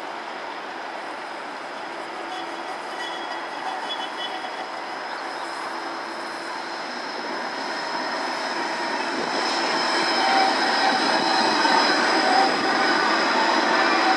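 Gold Coast G:link light-rail tram (a Bombardier Flexity 2) running on curved track, its wheels squealing with several held high tones over the running noise, growing louder as it comes close.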